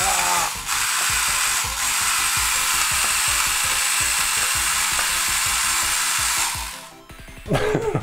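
Marushin Mini Magnum Shooter toy BB gun firing on full auto. Its Mini 4WD Ultra-Dash motor, run on three AA batteries, spins the BB-pinching rollers with a loud, drill-like whine over irregular clicks. The whine drops out briefly twice near the start and stops about six and a half seconds in.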